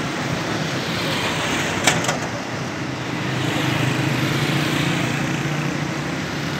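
Steady road traffic noise, with a vehicle engine swelling as it passes in the second half. Two sharp clicks about two seconds in are the loudest moment.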